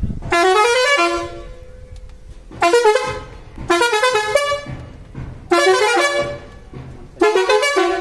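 Tractor air horn sounding about five loud blasts, one to two seconds apart. Each blast is a multi-toned note whose pitch slides briefly before holding.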